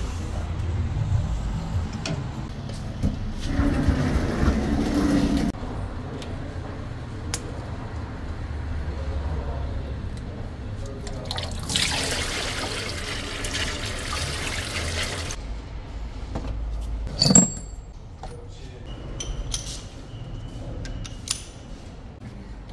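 Old engine oil pouring out of a Ford F-150's oil pan and splashing into a grated drain, a rushing liquid sound for a few seconds near the middle. A single sharp knock follows a few seconds later.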